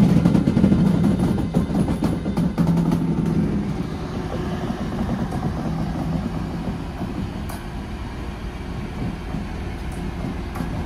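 Siemens Vectron electric locomotive moving away along the track: a steady low hum with wheel clatter on the rails, fading as it goes.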